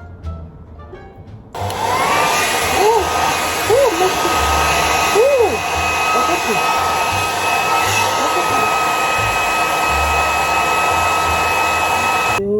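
Handheld hair dryer switched on about a second and a half in, its motor spinning up to a steady whine over a loud rush of air. It runs evenly for about eleven seconds, then is switched off abruptly just before the end.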